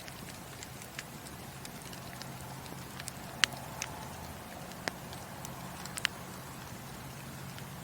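Wood fire crackling in a fireplace: scattered sharp pops, about six in all, the loudest about three and a half seconds in, over a steady low rush of the flames.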